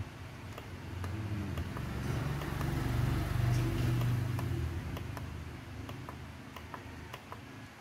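A motor vehicle's engine hum that swells to its loudest about three seconds in and then fades away, with faint scattered clicks.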